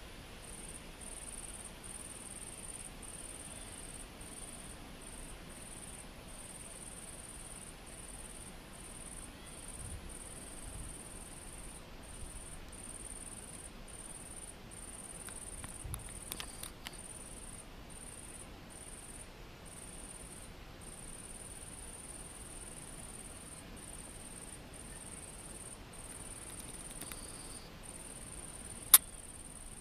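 An insect singing: a steady, high-pitched trill broken by short gaps. A single sharp click near the end is the loudest sound.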